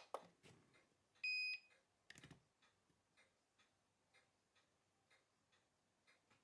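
Electronic beep from a timegrapher as its start/stop button is pressed: one short, steady high beep about a second in. It is followed by a brief clatter of handling near two seconds in, then faint regular ticks.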